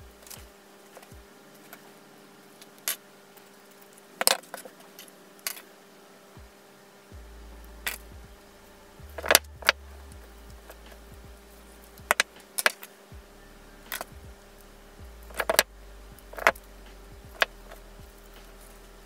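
Metal keyfob hardware (key rings and clamp ends) clinking and jangling in the hands. Irregular sharp clicks come as pliers crimp the clamps.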